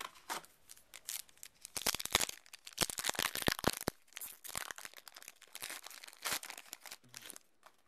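A Yu-Gi-Oh booster pack's foil wrapper being torn open and crinkled: a dense, crackling rustle that comes in bursts for several seconds, loudest about two to four seconds in.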